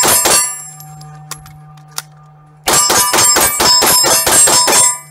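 Rapid pistol fire at about five shots a second, each shot followed by the ringing of the hit on a steel AC-zone target. The firing stops just after the start for a reload of about two seconds with two clicks, then resumes for about two more seconds of rapid shots and ringing hits before stopping.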